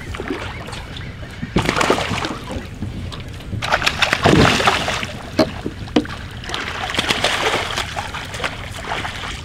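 Water splashing several times, the loudest about four seconds in, as a hooked striped bass is brought alongside and scooped into a landing net, over the steady low hum of the charter boat's idling engine.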